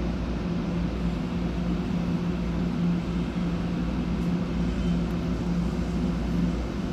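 Local electric commuter train running, heard at the gangway between two cars: a steady low rumble of wheels and running gear with a constant droning hum.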